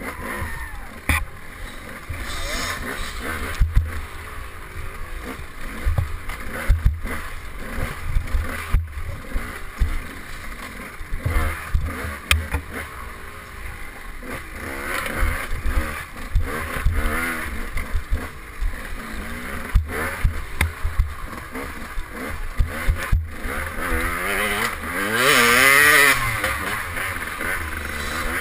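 Two-stroke KTM 200 XC dirt bike engine heard onboard, revving up and down as the bike is ridden hard over rough trail, with many short knocks and clatters from the bike over bumps. Near the end the revs rise and fall in one loud sweep.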